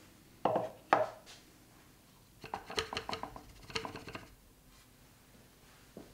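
Two sharp knocks, then about two seconds of quick clattering taps as the clear V60 dripper is shaken against its stand to level the freshly ground coffee bed; one faint tap near the end.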